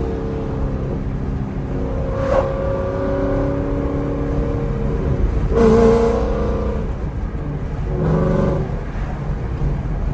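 2016 Ford Mustang GT's 5.0 Coyote V8 running through Kooks headers and a Corsa Extreme exhaust, idling steadily with brief louder surges about two, six and eight seconds in.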